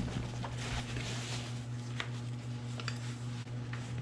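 Light rustling from handling a fabric tool roll, with a few soft clicks, over a steady low hum.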